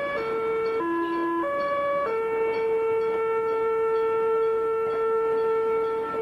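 Meitetsu Panorama Car music horn playing its melody: a few quick notes stepping up and down, then one note held steadily from about two seconds in.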